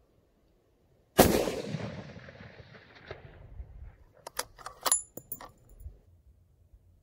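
A single shot from a Fierce Carbon Fury .338 Lapua Magnum rifle with its muzzle brake fitted: one very loud crack about a second in that echoes away over about two seconds. A few seconds later comes a quick run of sharp metallic clicks and clinks with a brief ring, the bolt being worked to eject the case.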